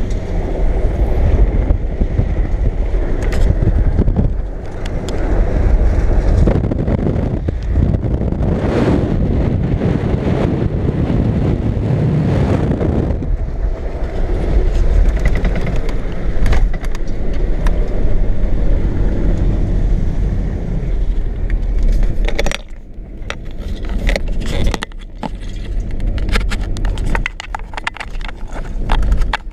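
Vehicle driving fast over a rough dirt track, heard from inside the cab: a steady low rumble of engine and tyres, with frequent rattles and knocks from the bouncing body and loose items, thickest in the last few seconds.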